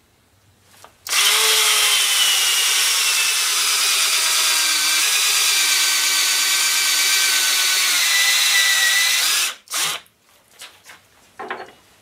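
Black & Decker Matrix 20-volt cordless drill driving a 1¾-inch hole saw, cutting a hole for about eight seconds. Its whine drifts slowly lower in pitch under the load, then stops suddenly. A few light knocks follow.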